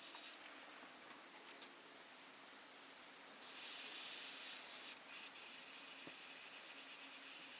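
Airbrush spraying paint in bursts of hiss: a short spurt at the start, a louder burst of over a second about three and a half seconds in, then a quieter steady spray.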